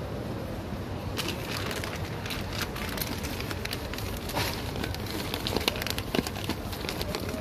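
Plastic bag of dry cat food crinkling and rustling as a hand grips and handles it, many small crackles starting about a second in, over a steady low background noise.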